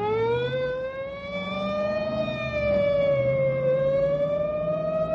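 A squad car siren sound effect, rising in pitch into a steady wail that sags slightly and climbs back about two thirds of the way through.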